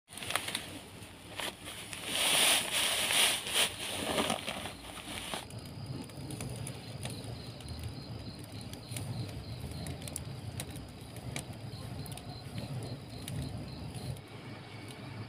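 Rice husk rustling loudly as it is poured from a sack and shoved into a husk-fired furnace; the rustle stops suddenly about five seconds in. A quieter steady low rumble follows, with a faint high ticking a few times a second.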